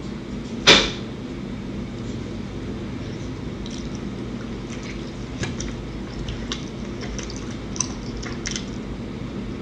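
A person eating a ground-beef quesadilla close to the microphone: one loud short noise about a second in, then soft chewing with small mouth clicks over a low steady hum.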